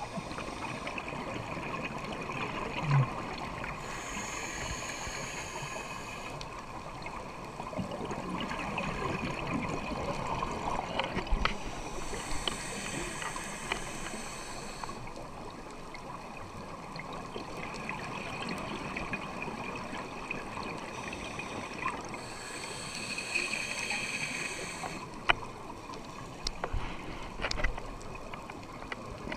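Steady rush of running water, with a few sharp clicks.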